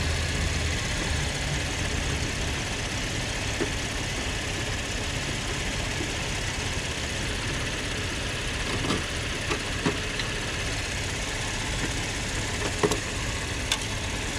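Car engine idling steadily, with a few light clicks of a socket wrench and hand tools in the second half.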